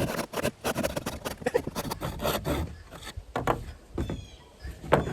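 Hand saw cutting through a wooden board with quick back-and-forth strokes, which die away about three seconds in.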